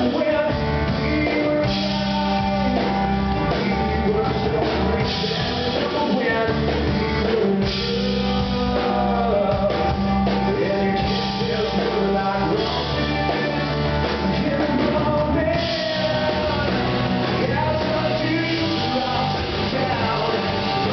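Live music: a man singing over a strummed acoustic guitar, with a second guitar playing along.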